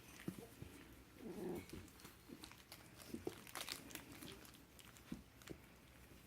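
Puppies playing quietly: faint scuffling and clicks of paws and claws, with one short low puppy vocalisation about a second in.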